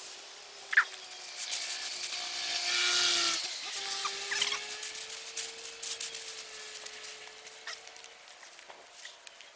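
Scraping and rustling, heaviest between about two and four seconds in, over a steady motor hum that slowly rises in pitch and stops near the end. A few short chirps.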